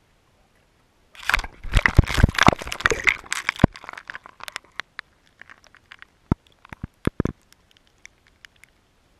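GoPro's waterproof housing knocking and scraping against the ice at the edge of a fishing hole. A dense run of crunching clicks starts about a second in, then thins to scattered ticks and knocks over the next few seconds.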